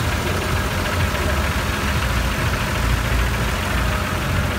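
Engines of several off-road 4x4s idling together, a steady low sound with no revving.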